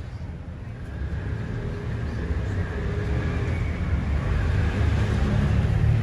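A low, steady rumble that grows gradually louder, with no clear strikes or words.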